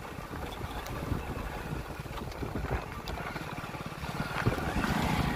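Wind noise on the microphone, with a motorcycle engine growing louder near the end as it approaches.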